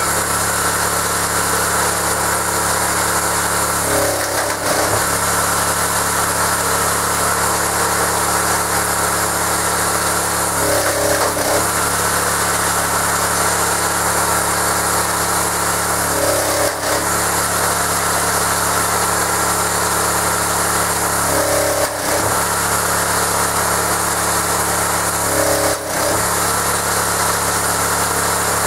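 Möller 6.5 hp 196 cc single-cylinder petrol engine running steadily, driving the hydraulic pump of a homemade log splitter. About every five seconds its note briefly dips and a short higher whine appears as the splitter's ram is cycled under load.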